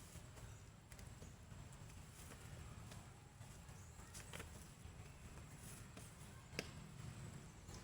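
Near silence: a faint low hum with scattered small clicks and taps, one sharper click about six and a half seconds in.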